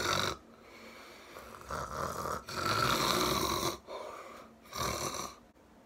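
A person snoring: a run of uneven snores that stops shortly before the end.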